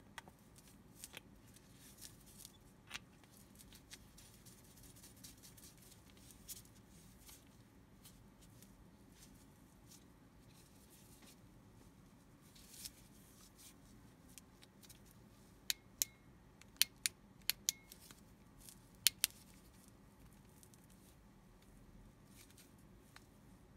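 A small aluminium flashlight handled in gloved hands: a CR123A lithium battery going into the body, with light scrapes and taps. About two-thirds of the way through come a quick run of eight or so sharp clicks within four seconds, from the flashlight's tail-end switch and cap being worked.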